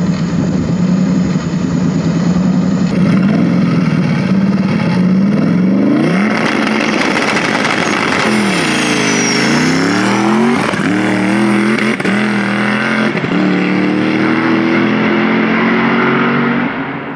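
Stick-shift V8 drag car on a launch: the engine is held at steady revs on the line, revs up and leaves, then pulls through several quick upshifts, the pitch dropping at each shift. The note fades away down the track near the end. The shifts come early: the car was short-shifted.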